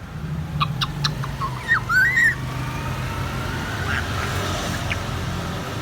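African grey parrot making a few clicks and a short bending whistle in the first couple of seconds, over a steady low hum like a vehicle engine that runs on after it.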